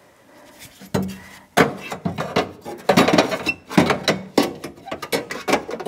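Steel window channel guide knocking, scraping and rattling against the sheet-metal inner panel of a pickup door as it is worked into the door, a dense run of irregular clanks starting about a second in.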